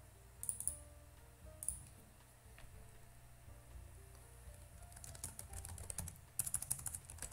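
Typing on a computer keyboard: two single clicks early on, then a quick run of keystrokes over the last two seconds or so.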